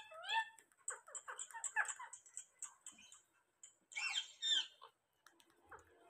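Rose-ringed parakeets calling and chattering: a run of short chirps, with rising, bending calls at the start and again about four seconds in.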